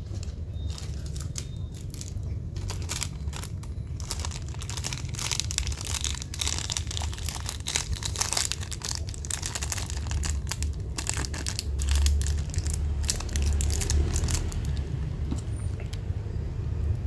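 Packaging crinkling and rustling as it is handled close to the microphone: a dense run of small crackles that thickens after the first couple of seconds, over a steady low hum.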